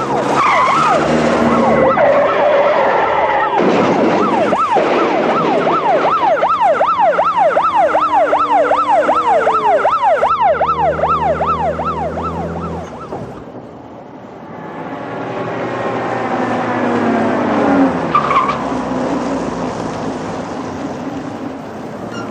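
Vehicle driving at speed with tyre and engine noise. For several seconds a fast up-and-down wailing siren sounds over it, several sweeps a second, then fades away. Traffic noise follows.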